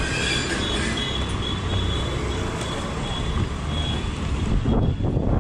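Steady street traffic noise from passing motorbikes and cars, with faint thin high tones from distant horns. Near the end, wind starts buffeting the microphone in low gusts.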